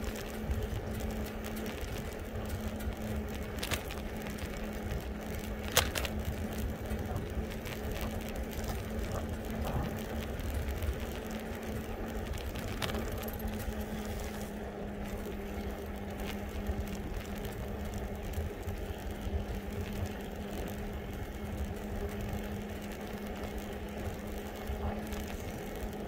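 Electric bike being ridden: wind rumble on the microphone and road noise, with a steady low hum running throughout and a few sharp clicks, the loudest about six seconds in.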